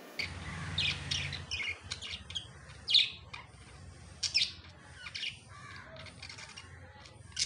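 A bird chirping in short, scattered calls, about seven spread over several seconds.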